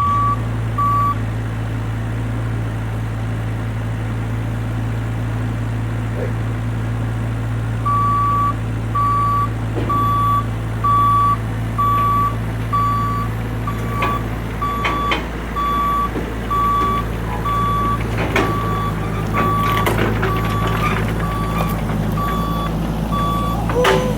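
Bobcat E26 mini excavator's diesel engine running steadily while its travel alarm beeps at an even pace. The alarm sounds briefly at the start, then again from about eight seconds in until near the end. Scattered knocks and clanks come in the second half.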